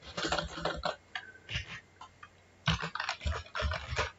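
Computer keyboard being typed on: quick runs of keystrokes with a pause of about a second in the middle.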